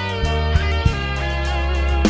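Soft rock band playing a slow ballad without vocals: an electric guitar melody with a few bent notes over sustained bass and light drum hits.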